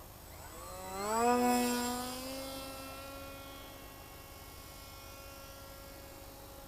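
Electric motor and propeller of a HobbyKing Phantom FPV model plane spooling up as the throttle is opened. The pitch rises for about a second, is loudest around a second and a half in, then settles into a steady hum.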